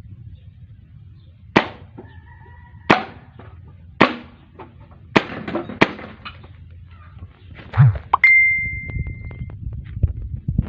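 Airsoft hi-capa gas blowback pistol firing single shots, about six sharp cracks roughly a second apart. About eight seconds in, a metallic ding rings on steadily for about a second.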